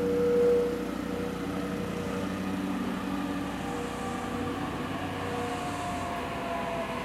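JR Kyushu 817 series electric train pulling into a station, its motors whining in a slowly falling pitch as it brakes, over steady running noise. A brief louder steady tone sounds about half a second in.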